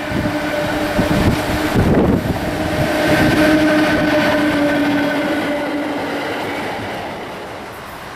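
Electric freight locomotive hauling a train of car-carrier wagons passing close by: running noise of wheels on the rails with a steady tone held over it for several seconds, dying away near the end as the train moves off.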